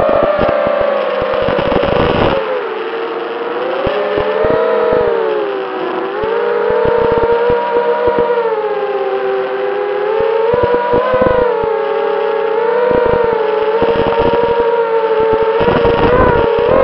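FPV quadcopter's electric motors and propellers whining, heard from the onboard camera. The pitch wavers up and down with the throttle, climbs near the end, and is broken by short crackles.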